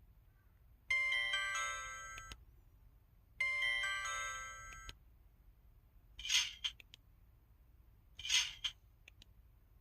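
KTF-TR2000 phone's folder-shut effect sounds: a short tinkling electronic chime phrase played twice, then two short swishes about two seconds apart.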